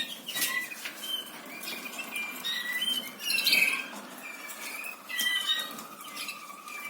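Caged canaries chirping with many short, high calls, mixed with light clicks and wing flutters. A thin steady tone runs through the second half.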